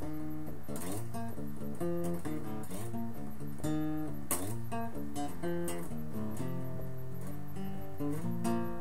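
Acoustic guitar played solo, the strings picked by hand in a run of changing notes and chords, each pluck ringing on.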